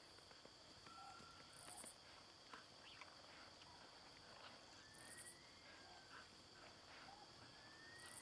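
Faint grassland insect ambience: a steady high insect drone, with short high-pitched insect trills about every three seconds and a few thin whistled calls.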